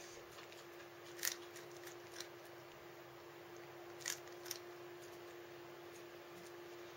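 Cat foraging for treats in a cardboard box: a few faint, sharp clicks and crunches of teeth and cardboard, about a second in and twice around four seconds in, over a steady faint hum.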